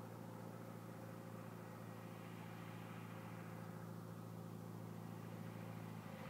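Light aircraft's piston engine with a steady, faint drone as the plane comes in on final approach to land.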